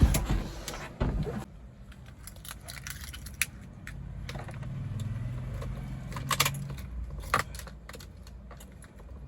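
Car keys jangling, with scattered sharp clicks and a loud knock at the start and another about a second in.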